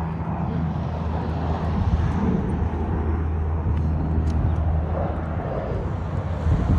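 Steady low engine hum outdoors, with a constant drone and background noise and no distinct events.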